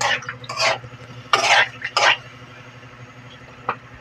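Spatula stirring and scraping pieces of meat in a thick tomato sauce in a steel wok: four quick scraping strokes in the first two seconds, then a single light tap near the end.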